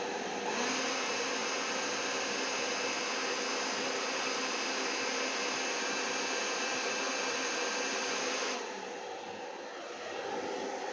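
Handheld hairdryer running steadily, blowing wet acrylic paint out across a canvas to spread a bloom. Its hiss thins out about eight and a half seconds in, then builds again near the end.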